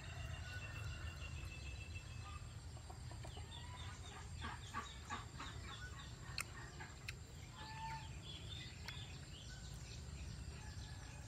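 Chickens clucking faintly in clusters of short calls, thickest from about four to six seconds in, over a steady low hum. There is one sharp click about six seconds in.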